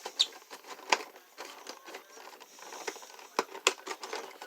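Hands working a collectible figure's packaging: scattered clicks and taps with light rustling, the sharpest click about a second in and two more a little past three seconds in.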